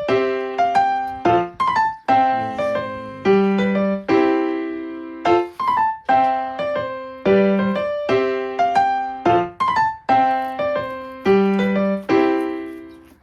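Background music: a gentle piano melody of struck notes that ring and fade, in a steady repeating phrase.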